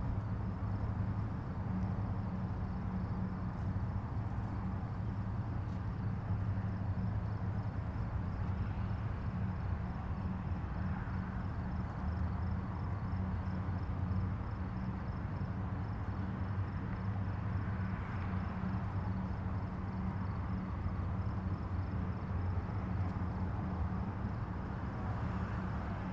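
A steady low motor hum with no change in pitch, with a faint fast ticking high above it.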